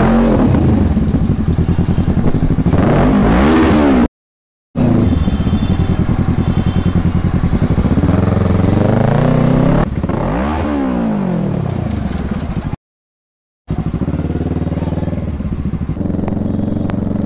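Kawasaki 650 parallel-twin motorcycle engine running under way, its pitch rising and falling twice as the throttle is opened and eased off. The sound cuts out completely twice for under a second.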